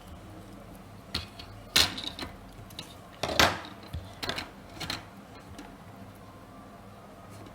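A quick run of irregular clicks and knocks over a few seconds, two of them louder, with a faint steady hum underneath.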